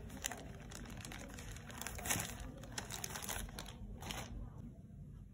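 Faint, irregular crinkling and rustling of a plastic bag as cotton wool is pulled from it by hand, with louder crackles about two seconds in and again about four seconds in.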